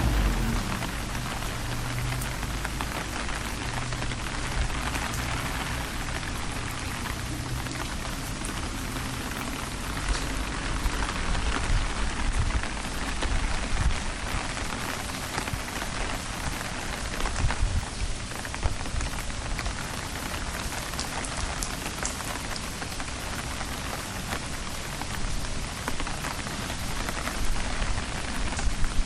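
Steady rain falling during an approaching typhoon, a dense even hiss of drops with scattered sharper taps.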